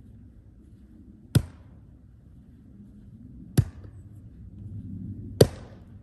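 Splitting axe striking firewood rounds three times, about two seconds apart, each blow a sharp crack of steel into wood.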